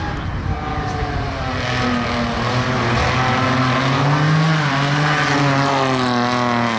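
Small hatchback competition car's engine revving hard through a slalom course, its pitch climbing and dropping several times as the driver accelerates and lifts between the cones.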